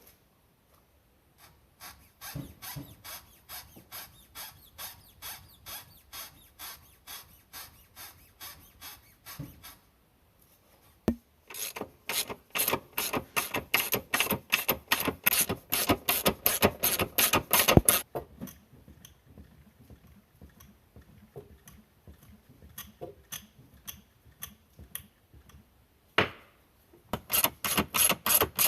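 A hand tool worked in repeated rasping strokes, about two a second at first, then a louder, faster run of about four a second, a pause with scattered ticks, and the strokes again near the end.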